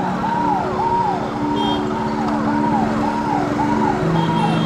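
Electronic vehicle siren sounding in quick, regular rise-and-fall whoops, just under two a second, over a steady engine drone.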